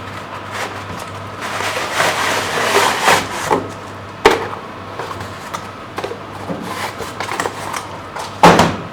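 Cardboard box and packed parts being handled and rummaged through: rustling and scraping, with a sharp knock about four seconds in and a louder thump near the end.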